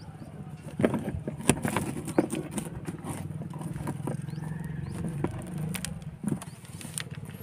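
Handling noise from plastic pixel LED bulbs on their wires being pushed into and knocked against a cardboard board: a handful of sharp, scattered clicks and taps. Under it runs a steady low hum.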